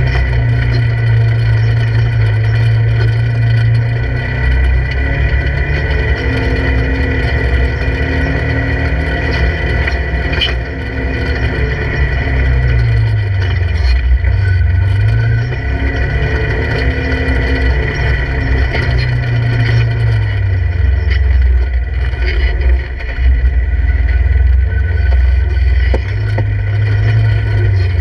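Polaris RZR 1000 side-by-side's parallel-twin engine running at low revs while crawling over rocks, heard from inside the open cab. Its note drops and climbs back about halfway through as the throttle is eased off and reapplied.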